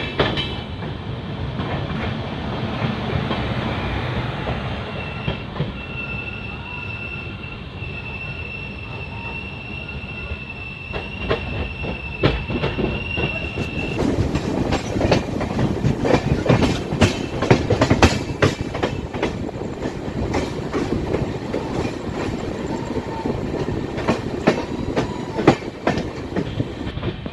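Passenger train coach wheels rolling on the track. A steady high-pitched wheel squeal runs from about five seconds in to about halfway, then gives way to fast, irregular clatter of the wheels over the rails.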